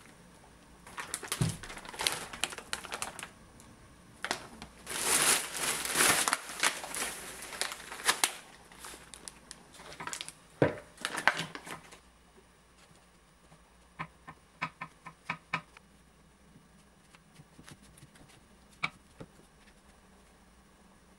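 Rustling and crinkling, as of something being handled and crumpled, for about twelve seconds. Then quieter, with a quick run of light clicks and taps and one more click near the end.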